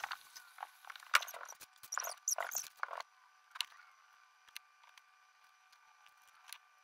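Dry crinkling and rustling of torn leaf pieces and paper being handled and pressed down by fingers: a cluster of crackles over the first three seconds, then a few isolated light ticks.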